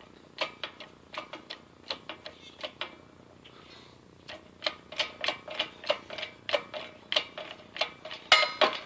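Hydraulic shop press forcing a keyway broach down through an aluminum pulley's bore, ticking with irregular sharp clicks about two or three a second, with a short pause midway and a louder clack near the end. The broach is cutting easily, "like butter".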